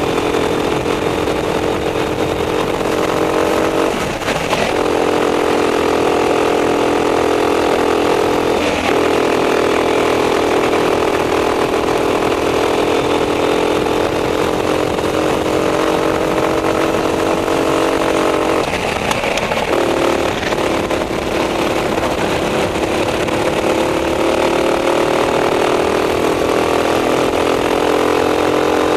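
Racing kart engine running at high revs under full throttle, its pitch climbing slowly along the straights and dropping away briefly three times, about four, nine and nineteen seconds in, as the driver lifts off for corners.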